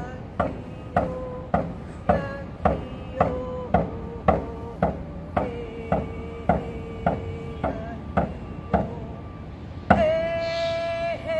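A woman singing while beating a hand drum in a steady beat of about two strokes a second, her voice holding one note between the strokes. Near the end a harder stroke comes and she holds a long, higher note.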